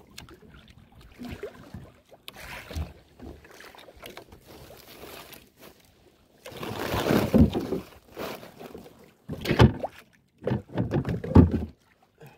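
Choppy sea sloshing and slapping against the hull of a small outrigger boat in irregular surges, the longest starting about six seconds in and two shorter ones near the end.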